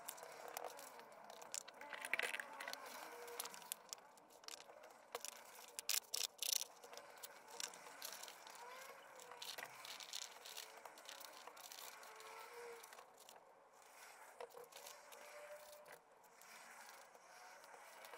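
Soft dabbing and scraping of a paintbrush spreading glue over newspaper strips on a papier-mâché form, with paper crinkling and scattered small clicks; a few sharper clicks come about six seconds in.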